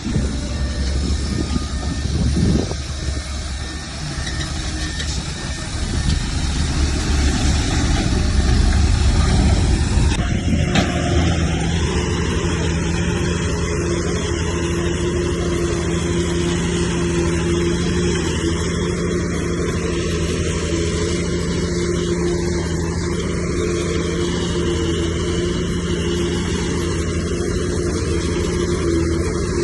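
Heavy earthmoving machinery working, its diesel engine rumbling and growing louder over the first ten seconds. About ten seconds in the sound changes abruptly to a steady engine drone.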